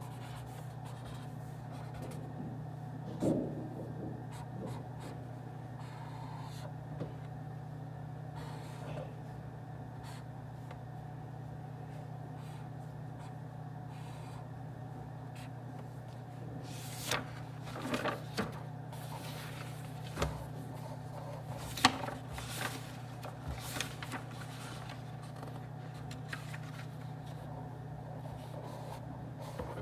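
Quiet study-room ambience: a steady low hum with scattered small taps, clicks and rustles of desk work. The handling sounds come once near the start and in a cluster in the second half.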